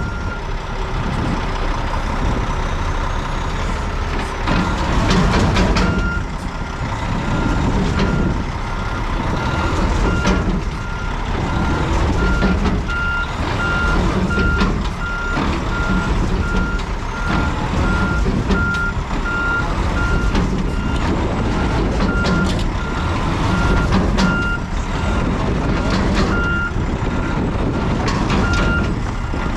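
Diesel dump truck's engine working under load while stuck, with its backup alarm beeping steadily in a regular series that starts about six seconds in.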